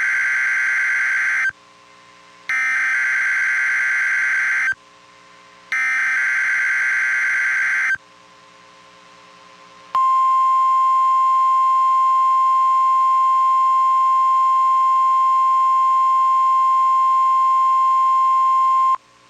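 Emergency Alert System required weekly test on NOAA Weather Radio. It opens with three bursts of the SAME digital header, each a harsh data screech about two seconds long. After a short pause comes the steady single-pitch warning alarm tone, held for about nine seconds.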